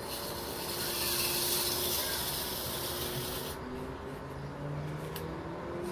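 Rubbing and scraping as fingers and a flat metal tool work against a Mayak clock movement's mainspring barrel: a steady hiss for about three and a half seconds that stops sharply, then a short click near the end.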